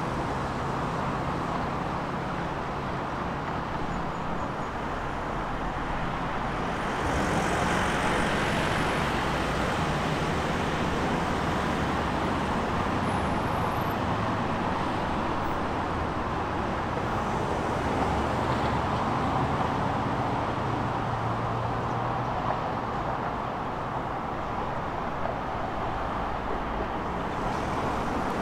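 Steady road traffic noise, the hum and tyre rush of passing cars and heavier vehicles, swelling louder about a quarter of the way in as traffic passes close.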